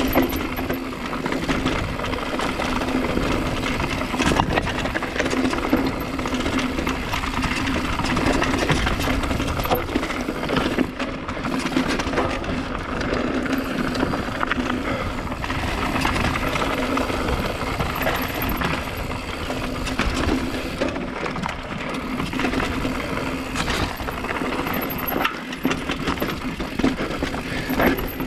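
Mountain bike ridden over rocks and roots: continuous rattling of the bike with tyre and riding noise, broken by frequent short knocks from impacts on the trail.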